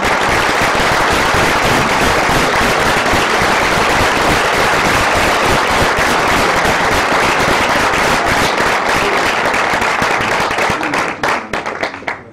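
Audience applauding: dense, steady clapping that starts all at once, then thins out into scattered claps and stops near the end.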